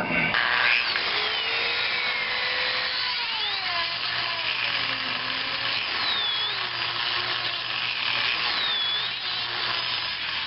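Handheld power tool cutting continuously into the potting compound of a CDI unit, its whine dipping and recovering in pitch a few times as it bites into the material.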